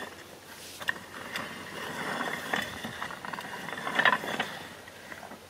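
Hills Hoist clothesline winding gearbox turned by its hand crank, the gear and coarse cast thread giving an uneven metallic clicking and rattling with a few sharper clicks; the gearbox has not been greased yet.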